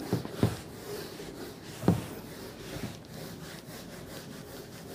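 Whiteboard being wiped clean: rubbing, scraping strokes across the board, with three knocks against it in the first two seconds, the last the loudest.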